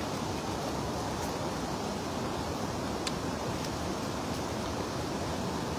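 Steady rushing outdoor noise, with a faint tick about three seconds in.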